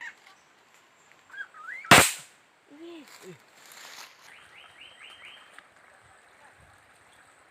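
A single sharp rifle shot about two seconds in, fired at birds in the trees. A few seconds later comes a quick run of about five high bird chirps.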